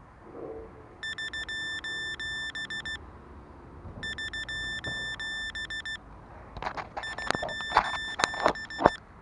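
Rapid, high electronic beeping from an FPV quadcopter, in bursts of about two seconds with a second's pause between them. About two-thirds of the way in, several sharp clicks and knocks join the beeping and are the loudest sounds.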